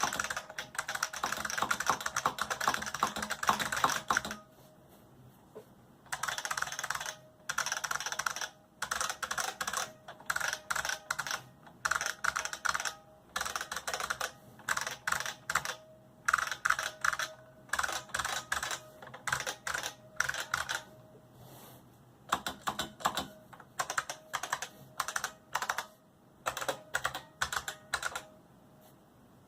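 IBM XT Model F keyboard with capacitive buckling-spring keyswitches being typed on. Fast continuous typing first, then a quiet gap of about two seconds, then bursts of keystrokes with short pauses between them.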